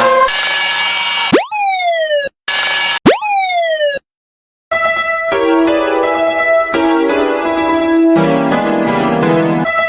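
Cartoon soundtrack. It opens with chopped bursts of hiss and pitched tones sweeping downward like a siren winding down, twice. After a brief silence, electronic keyboard music starts about five seconds in.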